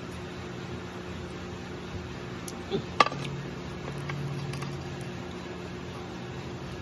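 Steady background mechanical hum, with one sharp clink of tableware on the glass table about three seconds in.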